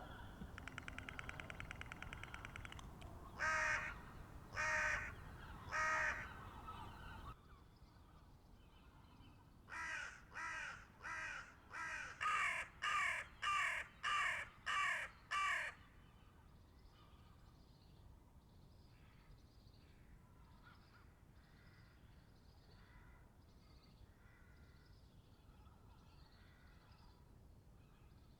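Hooded crow cawing: first a rapid rattling sound, then three loud caws a little over a second apart. After that comes a quick run of about nine caws, and then a long stretch of fainter calls.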